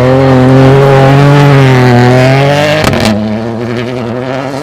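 Rally car engine running hard at high revs, one strong steady note that sags slightly about two and a half seconds in. A sharp crack comes about three seconds in, after which the engine note is lower and quieter.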